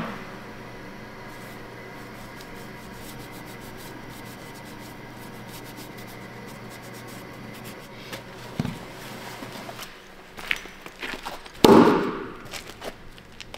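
A steady workshop hum with a sharp click at the start and a few small knocks, then, near the end, one loud thunk with a short ringing tail as the Damascus-steel hatchet head strikes a wooden chopping stump.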